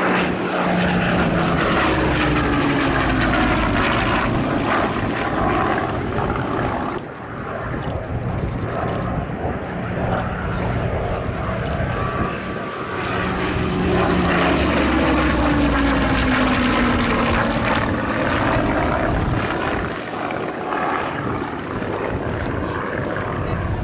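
Hawker Hurricane's Rolls-Royce Merlin V12 engine and propeller running loud as the fighter makes two passes, the engine note falling in pitch each time it goes by.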